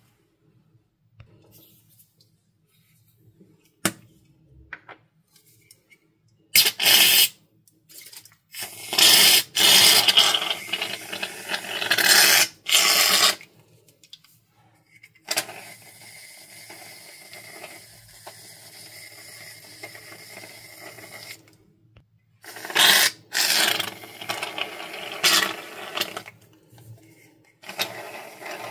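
Gillette shaving foam spraying from an aerosol can into a plastic bowl: several hissing spurts of about a second each, with quieter pauses between.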